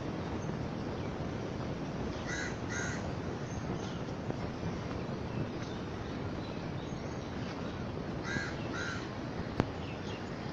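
A crow cawing: two short caws in quick succession about two seconds in and another pair about eight seconds in, over a steady background hiss. A single sharp click comes near the end.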